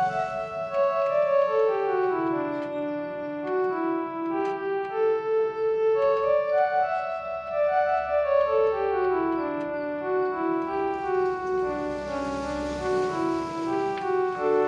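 Casio Tone Bank MA-120 electronic keyboard playing a single-note melody of held notes, one after another, in phrases that step down in pitch.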